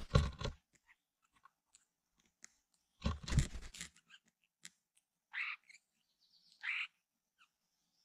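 Songbird nestling begging in its nest: two short harsh calls about a second apart in the second half. Earlier come two louder bursts of crackly noise.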